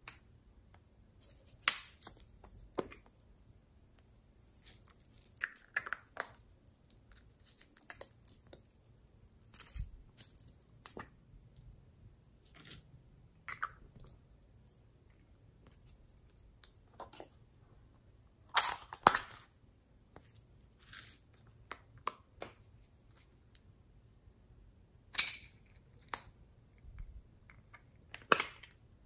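Small hard-plastic containers being handled and opened: irregular clicks, clacks and short scrapes of lids and plastic parts, with a few sharper snaps about two-thirds in and near the end.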